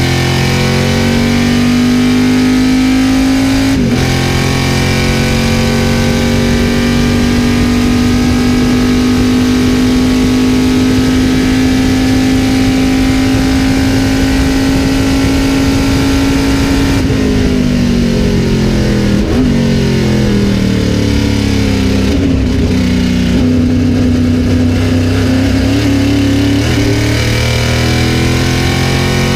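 Greenwood Corvette race car's V8 heard from inside the cockpit, at full throttle. After a gear change about four seconds in, it holds a steady high note for some thirteen seconds. It then falls in steps, as under braking with downshifts, runs lower for a few seconds, and climbs again near the end as it accelerates.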